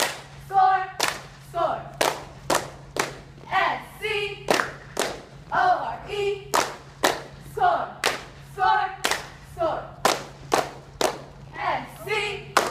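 Group of girls shouting a cheer chant in time with sharp hand claps and stomps, about two beats a second.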